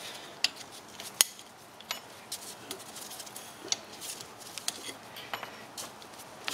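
Irregular small metallic clicks and clinks as the injector retaining clips are pried off a Jeep 4.0 litre fuel rail with a small pointed metal tool. The sharpest clicks come about half a second and just over a second in.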